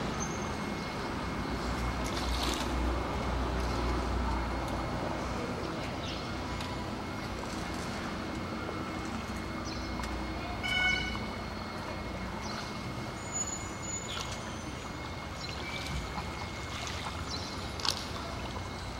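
Steady low rumble of a boat's motor moving along a canal, with traffic noise in the background. A brief pitched toot sounds a little past the middle.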